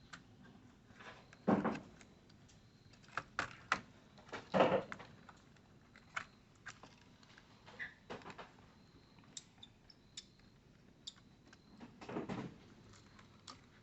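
Scattered small clicks, taps and rattles of plastic and metal laptop parts being handled by hand as the keyboard is detached from a Dell Latitude 7410, with three louder short rustles.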